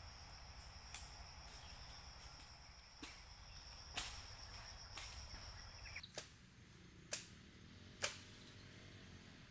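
Insects calling on steady high tones, one stopping and a higher one taking over about six seconds in. Sharp knocks or snaps come through about once a second.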